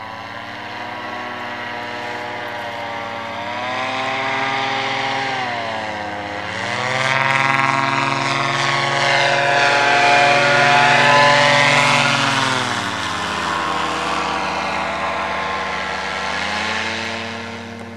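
Powered paraglider's engine and propeller droning as it flies past overhead. It grows louder through the middle and shifts in pitch several times, dropping noticeably about two-thirds of the way through.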